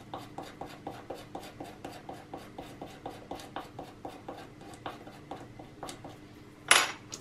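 A pointed tool scraping quickly back and forth over the planar-magnetic driver's thin aluminium-on-film diaphragm foil, about four to five short scratchy strokes a second, with one louder scrape near the end. The scraping wears through a coating on the foil's aluminium trace so that the multimeter can get a reading.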